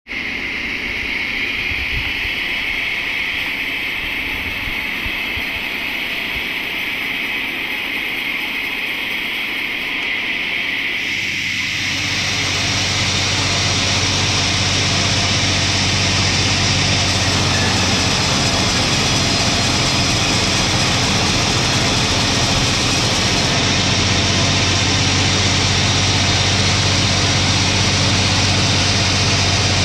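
Engine-driven saw running steadily as a log is sawn into slabs; about 11 seconds in it grows louder and fuller, with a steady low hum, as the cut gets under way.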